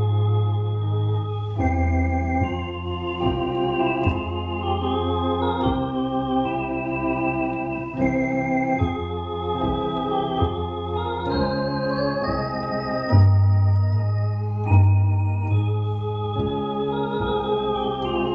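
Two-manual electronic home organ playing a hymn: held chords that change every second or two over a sustained low bass line.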